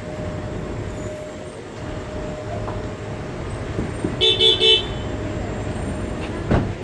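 Motorcycle running through city traffic, with steady engine and road noise. A vehicle horn beeps three times in quick succession about four seconds in, and there is a short knock near the end.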